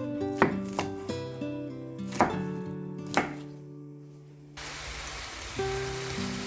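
A knife chopping onion on a cutting board, a few separate sharp chops, over background music. About four and a half seconds in, this gives way abruptly to the steady sizzle of food frying in a pan.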